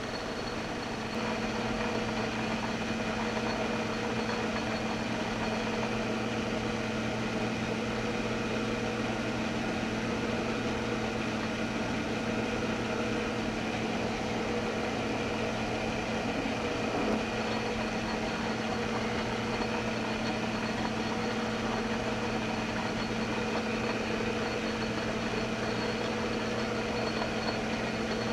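Metal lathe running under power while thread-cutting a gray cast iron plug gauge dry, a steady mechanical hum that steps up about a second in and then holds even.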